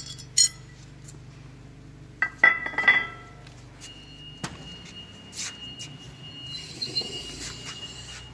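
Removed electric-motor parts clinking on a workbench: a quick cluster of sharp metallic clinks with a short ring about two to three seconds in, then a few lighter ticks.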